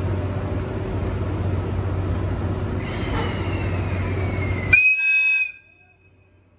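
EF81 electric locomotive sounding a short, high-pitched whistle blast about five seconds in, the departure signal, over a steady low hum. The sound cuts off abruptly just after the whistle.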